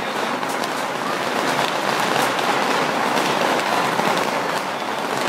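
Strings of firecrackers going off in a dense, continuous crackle, with a few louder cracks standing out every second or so.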